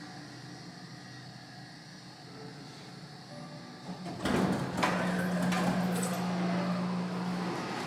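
Vintage Otis elevator doors opening: a few seconds in, a clunk and several clicks as they unlock, then the car and hall doors slide open with a steady hum that stops shortly before the end.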